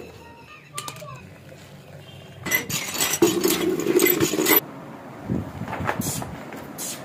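Metal milk cans clinking faintly as they are handled, then water gushing from a pipe into a plastic bucket for about two seconds with a steady rushing sound.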